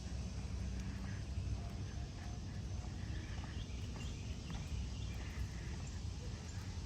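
Outdoor walking ambience: footsteps on a sidewalk over a steady low rumble, with a few faint bird chirps.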